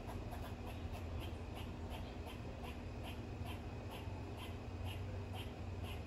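An animal's short raspy call repeated in a steady rhythm, a little over two calls a second, over a low steady hum.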